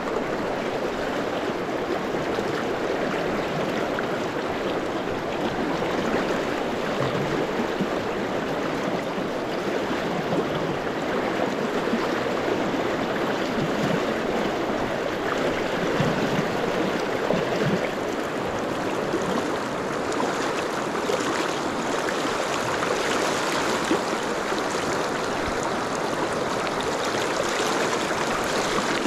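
Shallow river riffle, a steady rush of fast water heard close up.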